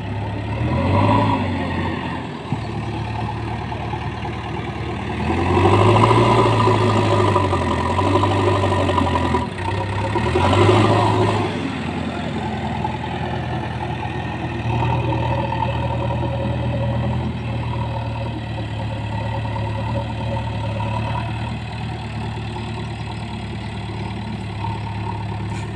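Heavy diesel engine running: it revs up and down in a short burst about a second in and in several swells between about five and twelve seconds in, then settles to a steady idle.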